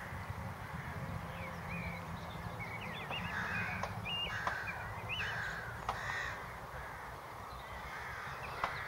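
Crows cawing, a series of hoarse calls about three to six seconds in, over a steady low background rumble.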